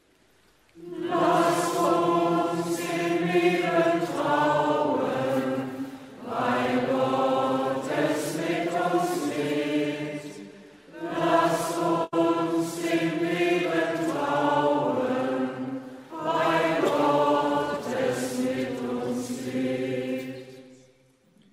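Voices singing a short liturgical chant in four phrases: the sung response to an intercession in a church service.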